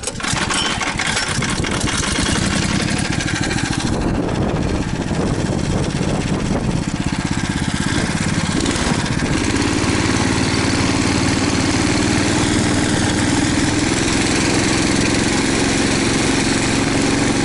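Small engine of a motorized snow tow running steadily, with a steadier hum setting in about ten seconds in.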